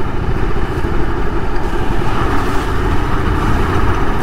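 Motorcycle running steadily while being ridden along a town road, with wind buffeting the microphone.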